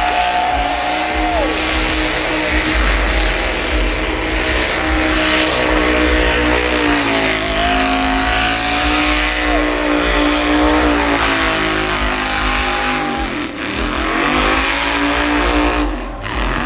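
The El Chromino's engine is held at high revs during a burnout over the hiss and squeal of the spinning rear tyres. The revs sag and climb back a few times.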